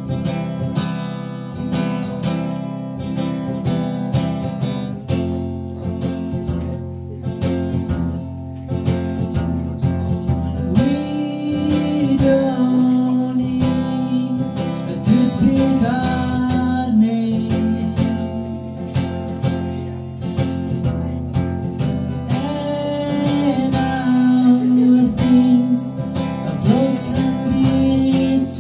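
Acoustic guitar strummed in a steady chord pattern, with a voice singing a melody over it from about eleven seconds in.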